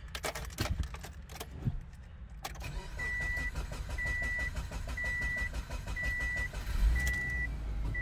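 A 2006 Subaru Forester's EJ25 flat-four engine starts after a few clicks and settles into a steady idle about two and a half seconds in, on its first start after a new ignition coil pack. Over it, a dashboard warning chime beeps about once a second.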